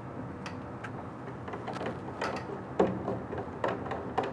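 Faint scattered clicks and light knocks of hands fastening a DTF printer's film take-up roller in place with its screws, with a somewhat louder knock near three seconds in.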